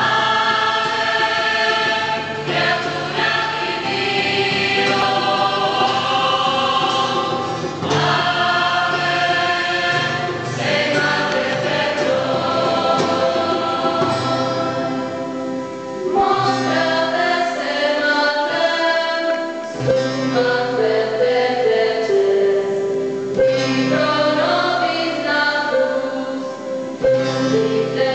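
Mixed parish choir, mostly women and girls with a few men, singing a Marian lauda (a devotional hymn to Our Lady of Sorrows) together, with short breaks between phrases.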